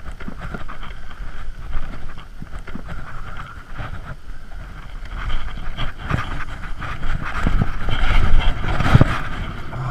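A 25 hp outboard motor running on a small aluminium boat, getting louder in the second half as the boat gets underway. It is running again after air was cleared from a pinched, leaking fuel line that had stalled it.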